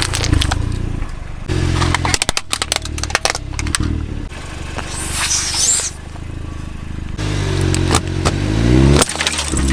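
Car engine running and revving, with quick crackling and crunching as objects are crushed under its tyres, and a brief hiss about five seconds in.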